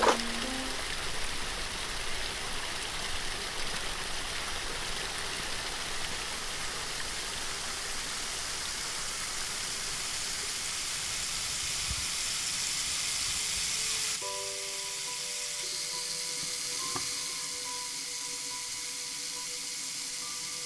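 Small waterfall pouring and splashing onto rock and a shallow pool, a steady rushing hiss. About two-thirds of the way through it cuts to a thinner, quieter hiss under long sustained music notes.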